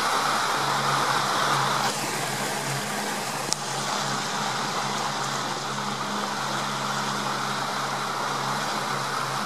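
Steady low hum of a boat's motor running under an even hiss of wind and water. The hiss drops at a cut about two seconds in, and a single brief click comes about a second and a half later.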